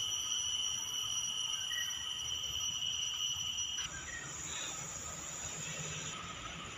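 Insects droning steadily in tropical forest, a high continuous buzz; the drone changes pitch abruptly about four seconds in.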